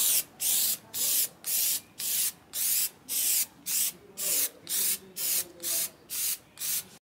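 Aerosol can of plastic dip spray paint hissing in short, rapid bursts, a little over two a second, as the nozzle is pressed and released over and over; the hissing cuts off suddenly near the end.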